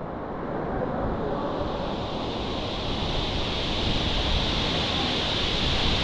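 Waterfall's rushing water, a steady hiss and rumble that swells up over the first second, then holds even.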